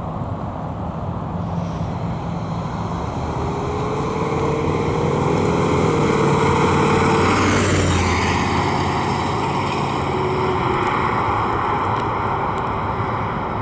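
1966 Chevrolet Chevelle SS convertible's V8 engine driving past with tyre noise. It grows louder as the car approaches, drops in pitch as it passes about eight seconds in, then fades slightly as it pulls away.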